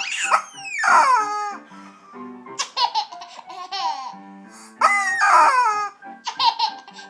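A toy chicken makes two long squawks that fall in pitch, about five seconds apart, over a simple tune. A baby laughs in between.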